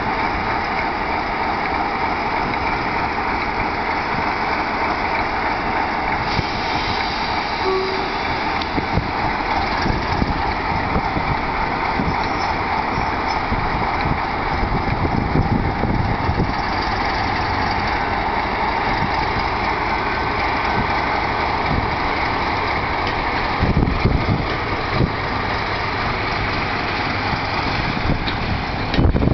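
Class 47 diesel locomotive's Sulzer twelve-cylinder engine working steadily as it pulls its train away from the station, with a few low thumps near the end.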